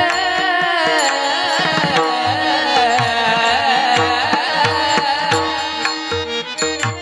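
Marathi devotional kirtan music: singing over a steady held drone, with a hand drum keeping a regular beat. The singing stops about five and a half seconds in, and the drone and drum go on.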